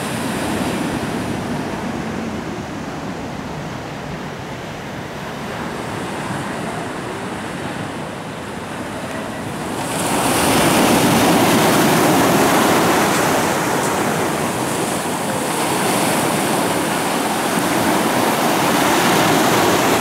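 Sea surf washing onto a pebble beach in a steady rush, turning louder and brighter about halfway through.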